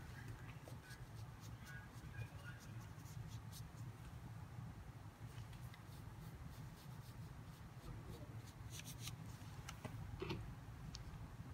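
Faint scratching and light ticks of a soft Chinese painting brush stroking and dabbing colour onto paper, over a steady low hum.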